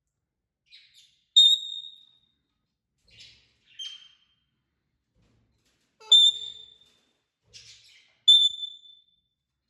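Parrots calling: three loud, clear high calls, each tailing off quickly, about a second, five seconds and seven seconds in, with softer raspy chirps between them.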